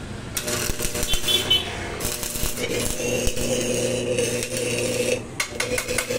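Repeated light metallic clinks and rattles of metal being handled, over a steady low engine hum.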